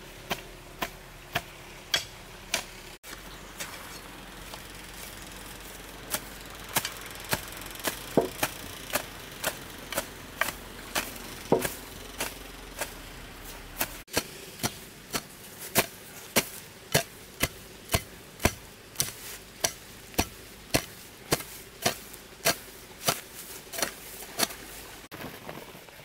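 A hoe chopping into grassy soil in repeated strokes, each a sharp thud. The strokes are slower at first and settle to about two a second in the second half.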